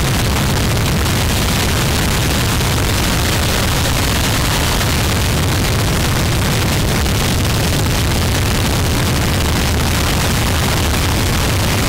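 Harsh noise music: a loud, unbroken mass of distorted static and rumble, heaviest in the low end and the high hiss, with no beat or pause.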